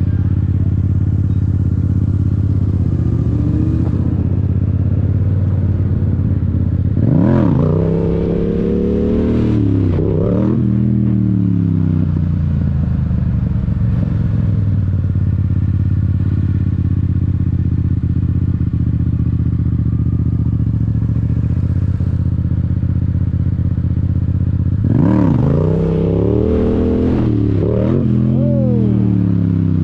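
Yamaha R7's parallel-twin engine running at low revs, with two clusters of sharp throttle surges, the pitch rising and falling two or three times each, about a quarter of the way in and again near the end.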